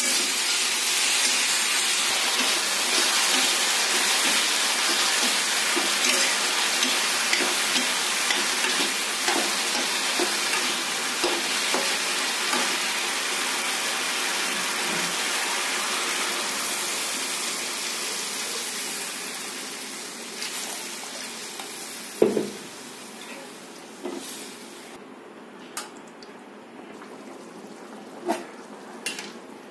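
Aloo gobhi (potatoes and cauliflower) sizzling as they fry in oil in a steel wok, with a metal spatula stirring and scraping. Past the halfway point the sizzle dies down as water goes in for the gravy, leaving a quieter bubbling and a few sharp clinks of the spatula on the pan.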